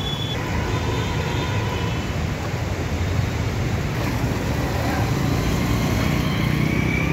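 Road traffic on a flooded street: motor vehicle engines running under a steady hiss.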